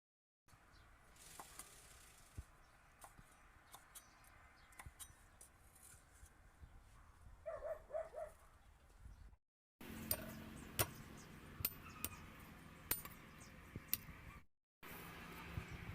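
Kitchen preparation sounds: scattered clinks and clicks of utensils and dishes, with sharper, more frequent knocks in the later part, broken by two abrupt cuts to silence.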